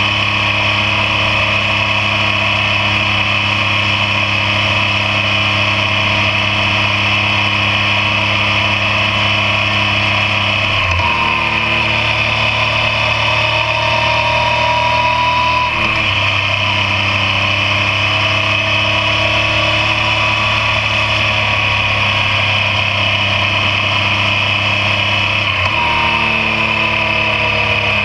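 Yamaha MT-09's inline three-cylinder engine running at road speed, heard close from a bike-mounted camera over wind and road noise. Its pitch jumps up sharply about 11 seconds in, drops back about five seconds later, and jumps up again near the end, as the rider changes gear.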